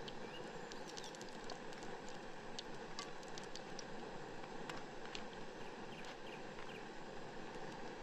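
Samosas shallow-frying in hot oil in a pan: a steady sizzle with scattered small pops and crackles.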